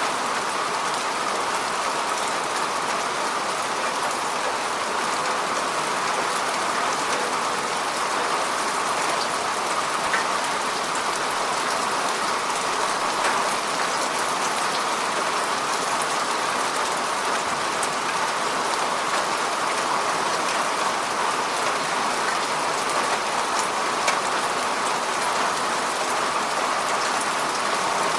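Steady rain falling on a lake's water surface: an even hiss of drops with faint scattered individual splashes.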